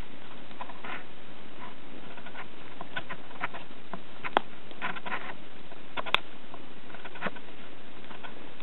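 Wood campfire crackling: a scatter of irregular small pops and snaps over a faint steady hiss, with two sharper pops in the middle.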